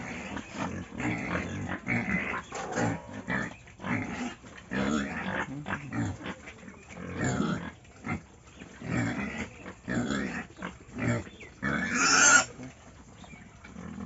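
Several young pigs grunting over and over, in short low calls close together. Near the end comes one louder, harsher noise.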